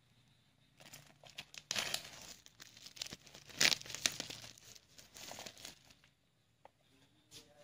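Plastic packaging crinkling and tearing as a box is unwrapped, in irregular crackly bursts for about five seconds, loudest near the middle, followed by a few faint clicks.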